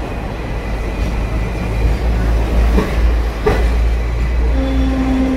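Hong Kong double-decker electric tram running on its tracks, heard from on board as a steady low rumble, with a couple of short clacks in the middle. A steady tone comes in near the end.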